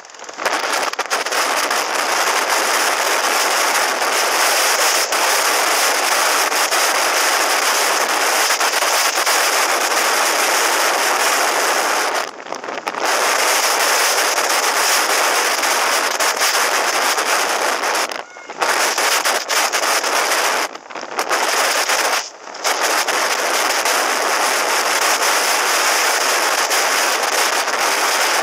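Wind rushing and buffeting over a helmet-mounted camera's microphone on a moving motorcycle, loud enough to bury the engine; it drops away briefly four times, near the middle and in the later part.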